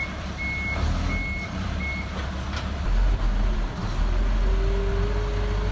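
Vehicle reversing alarm beeping four times, evenly spaced, over a steady low rumble.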